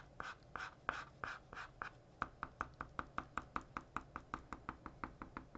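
Wide-tip ink pen rubbing in short strokes on paper as a dark area is filled in: about three strokes a second at first, quickening to about five a second after two seconds.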